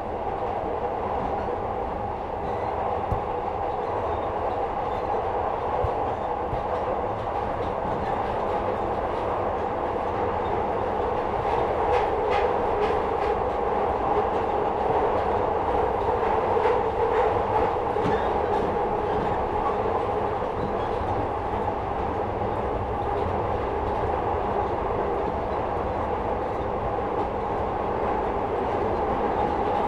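Inside a 2nd-generation Glasgow Subway car (Metro-Cammell stock) running between stations: a steady rumble with a held two-pitch hum, and a run of wheel clicks and rattles about halfway through.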